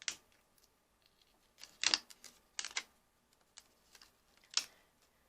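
Scattered light clicks and crinkles, about half a dozen, from hands working on an open laptop's underside while a sheet of paper covering the CPU cooler area is peeled back; the loudest comes about two seconds in.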